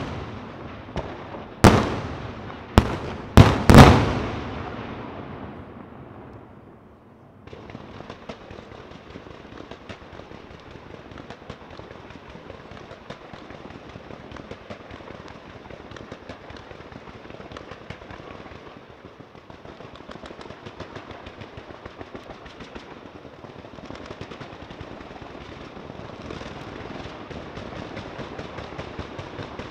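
Fireworks display: about five loud shell bursts in the first four seconds, their echo dying away, then from about seven and a half seconds a dense, rapid crackling of small reports that keeps on steadily.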